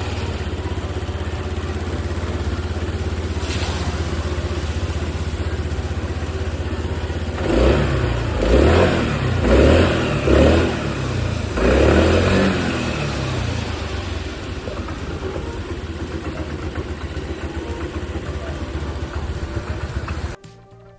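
Kymco GP125 fuel-injected scooter's single-cylinder engine idling, blipped through several quick revs in the middle, then settling back to idle before cutting off just before the end.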